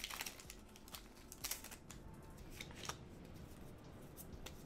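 Foil wrapper of a Pokémon TCG XY Evolutions booster pack crackling as it is torn open and the cards slid out, then a few faint clicks of the cards being handled.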